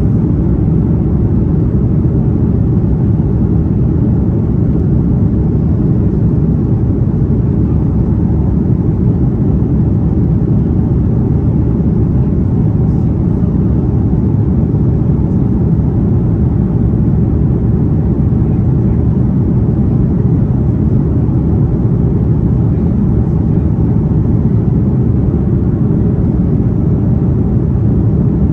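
Steady low rumble of an Airbus A330's engines and rushing air, heard inside the passenger cabin, unchanging throughout.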